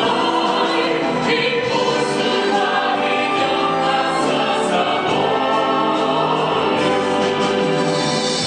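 Stage-musical cast and chorus singing together in the finale over instrumental backing, on long held chords.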